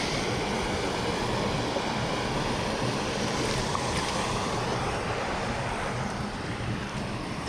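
Creek water rushing steadily over and between the rocks of a small cobble dam.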